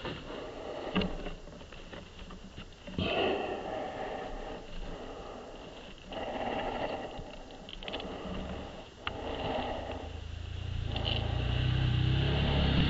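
Heavy breathing close to the microphone, about five long breaths with pauses between them. Near the end a motorcycle engine's low running sound comes in and grows louder.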